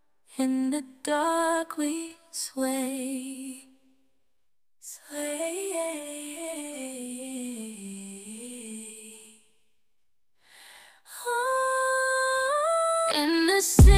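Background music: a woman's wordless singing in short wavering phrases with pauses between them, ending on a long held note. A beat comes in right at the end.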